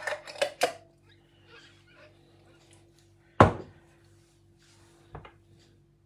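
Metal teaspoon clinking a few times against a glass mug as honey is stirred into a hot drink, then a single sharp knock about three and a half seconds in and a lighter one near the end.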